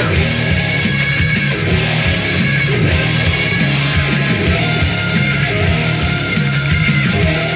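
Rock music with electric guitar and a busy bass line, played loud and steady through a pair of Realistic (Radio Shack) bookshelf speakers and picked up from in front of them.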